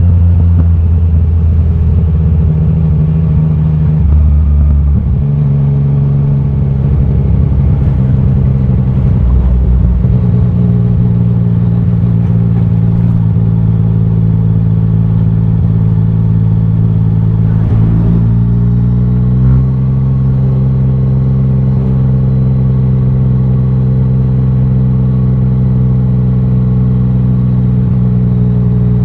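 Loud Yamaha Tracer 900 GT 847 cc inline-three engine running through a titanium Akrapovic exhaust while riding. The engine note holds steady, shifts in pitch a couple of times in the first ten seconds, and climbs about two-thirds of the way through.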